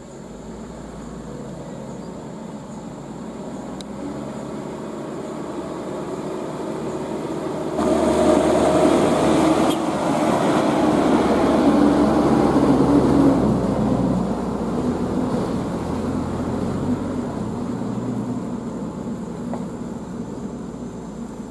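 Diesel engines of heavily laden Mitsubishi Fuso Canter trucks, loaded with oil palm fruit bunches, running under load as they crawl along a rough dirt road. The engine sound builds steadily, rises sharply about eight seconds in and is loudest for about five seconds as a truck passes close, then slowly fades.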